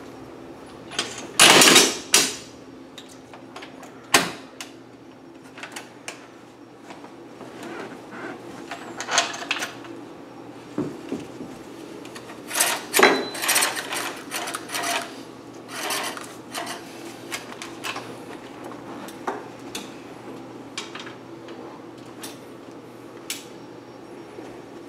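Magliner aluminium appliance hand truck and its load knocking, clattering and scraping as it is worked up stairs: an irregular run of clunks and rubs, loudest in a burst near the start and again about halfway through.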